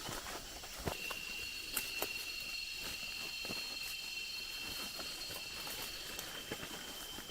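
Rainforest insects trilling steadily at a high pitch, starting about a second in, with scattered light clicks and crackles.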